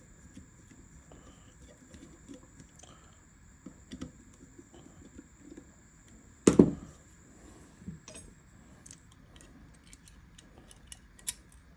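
Small metal clicks and taps of Remington New Model Army revolver parts being handled and fitted during reassembly, with one louder knock about six and a half seconds in.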